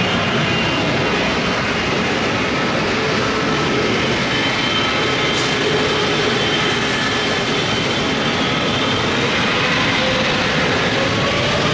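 Jet engines of a taxiing Boeing 777 (GE90 turbofans): a steady rumble and hiss with faint whining tones, and a whine that rises in pitch near the end.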